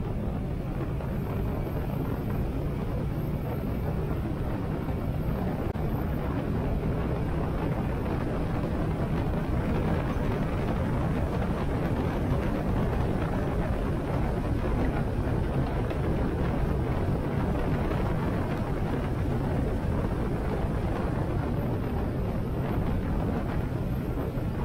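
Harley-Davidson Sportster 883's air-cooled V-twin engine running steadily on the move, under a constant rush of wind over the rider's helmet.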